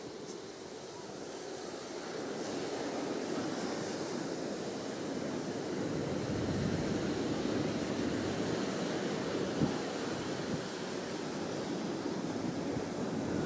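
Wind on the microphone and surf on a beach: a steady rush of noise that slowly grows louder, with one short tap about ten seconds in.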